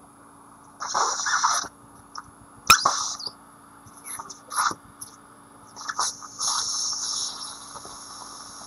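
Dental surgical suction slurping fluid and blood from a fresh extraction socket during implant site drilling, in four short hissing bursts with a faint steady equipment hum beneath.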